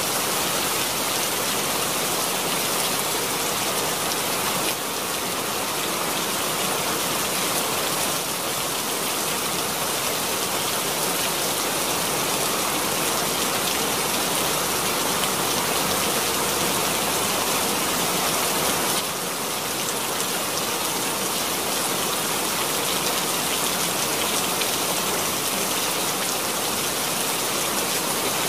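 Steady rain falling: a dense, even hiss of many drops, with no thunder.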